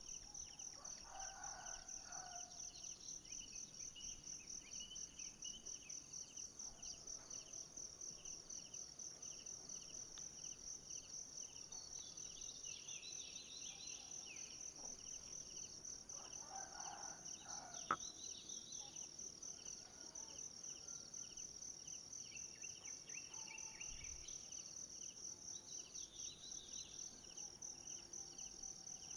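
Steady insect chorus in forest: a fast high pulsing trill with a slower, lower pulsed chirping beneath it. Short bird calls come about a second in and again around seventeen seconds in, and there is a single sharp click just after.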